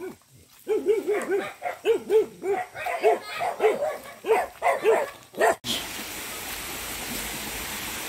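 A dog barking repeatedly, about a dozen quick barks over some five seconds. Then, after an abrupt cut, the steady rush of a rocky forest stream's running water.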